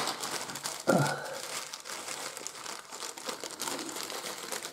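Clear plastic bag crinkling as it is handled and turned over in the hands, its contents of small terrain pieces shifting inside. There is a brief louder sound about a second in.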